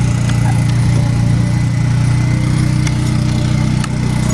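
Engine running steadily at an even speed, a constant low hum.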